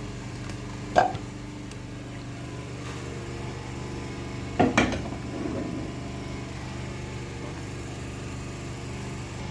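A steady low motor hum runs underneath, with two short clanks, one about a second in and a double one near the middle: cookware knocking as the pot is handled at the stove.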